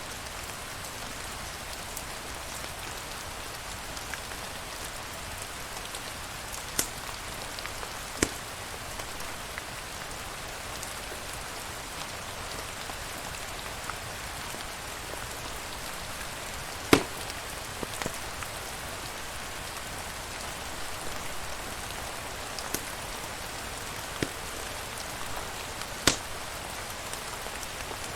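Steady rain falling, an even hiss, with a few sharp single ticks or pops standing out now and then, the loudest about two-thirds of the way through.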